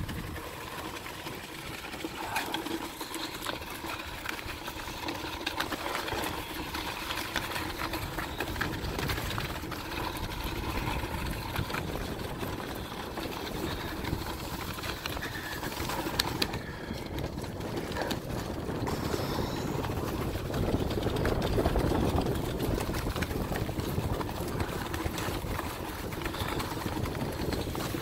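Sled runners scraping over packed snow on a downhill run: a continuous rushing, rumbling noise that grows louder in the second half.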